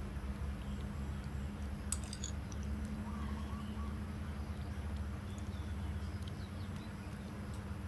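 A metal spoon clinks once against a ceramic bowl about two seconds in, with a few fainter ticks later, over a steady low hum.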